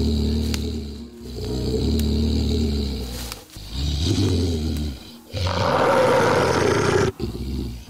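A werewolf's low, growling roars: four long roars in a row, the last one louder and harsher.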